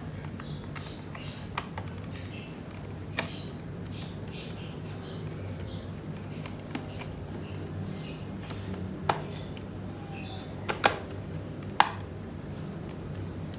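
Scattered sharp clicks and taps of a small screwdriver and screws on a laptop's plastic back casing, about six in all, the loudest near the end. Under them a steady low hum and chirping insects.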